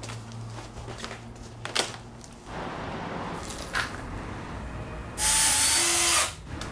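Cordless drill running for about a second near the end, driving a screw into the wooden roof-window frame. Before it come a few light clicks and knocks of parts being handled.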